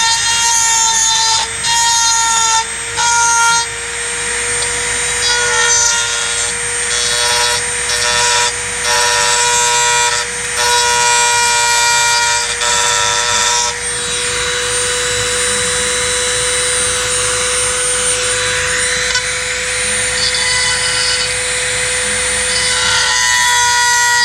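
Dremel rotary tool with a carbide cutter running at a steady high whine, with on-and-off grinding and grating as the bit cuts away material for a cutout.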